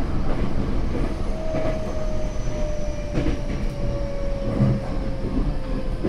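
Tokyo Metro 08 series electric train heard from inside a car: steady wheel and track rumble with rail-joint clicks every second or so. A faint whine from the Mitsubishi IGBT inverter traction motors falls slowly in pitch as the train slows.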